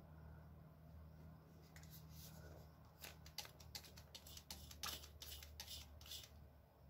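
Ear-irrigation spray bottle being squeezed in quick succession, a run of faint short squirts and clicks starting about three seconds in and lasting some three seconds, as it flushes an ear canal packed with wax.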